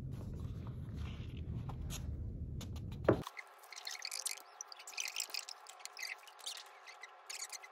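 Sheets of printer paper being handled, rustling with scattered clicks over a low rumble. A sharp knock comes about three seconds in. After it the rumble cuts off abruptly and faint, irregular crackling clicks go on.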